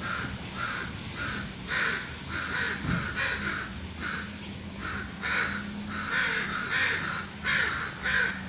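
Several crows cawing over and over, short harsh calls coming about three a second and sometimes overlapping.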